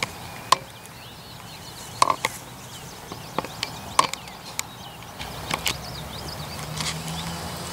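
Handling noise: a few sharp, separate clicks and knocks spread over several seconds, as gear and a measuring gauge are handled on a vehicle bed.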